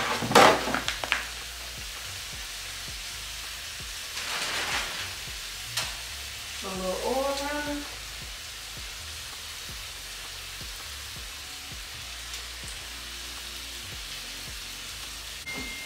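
Steaks frying in a pan, with a steady sizzle throughout. In the first second there are a few louder knocks and rustles, and about four seconds in the noise briefly swells.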